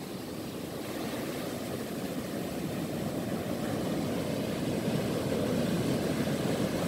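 Surf breaking and washing up a sandy beach, a steady low rumble that grows slightly louder, with wind on the microphone.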